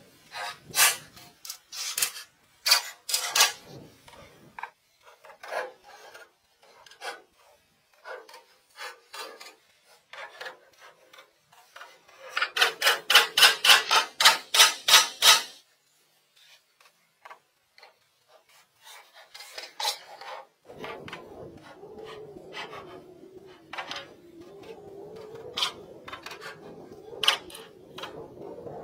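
Wood being worked by hand: scattered scrapes, rubs and knocks on boards, with a run of about a dozen quick, even rasping strokes in the middle. A low steady hum comes in for the last several seconds, with a few knocks over it.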